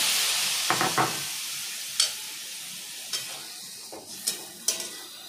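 A splash of water sizzling in a hot kadai of fried vegetables and poppy-seed masala, the hiss loud at first and fading over a few seconds. A metal spatula stirs the pan, scraping and tapping against it about half a dozen times.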